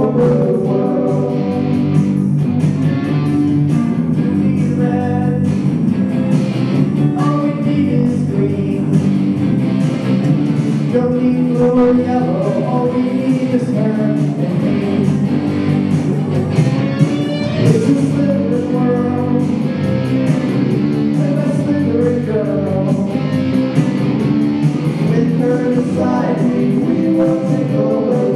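Live rock song: electric guitar with male voices singing.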